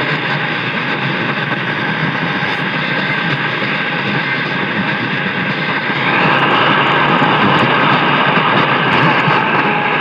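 Steady hiss and static from a car radio on the AM band, with no programme audio; the hiss gets louder about six seconds in.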